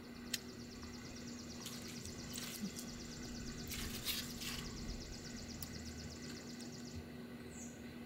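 Soft rubbing and squishing as gloved hands work a brake caliper piston and its rubber dust seal back into the bore, with a few handling noises in the first half. Behind it runs a rapid, high ticking trill that stops about seven seconds in, and a short falling chirp comes near the end.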